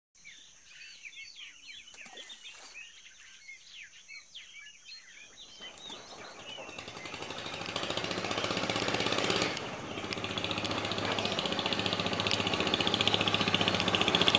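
Birds chirping over a steady high tone. From about five seconds in, an engine's low, even running fades in and grows louder until it drowns out the birds, with a brief dip near the end.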